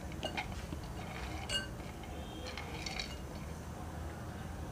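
Light clinks and taps against a glass mixing bowl as chopped nuts and dates are tipped into it from a plastic plate. The loudest is a short ringing clink about a second and a half in, with a few softer clicks around three seconds.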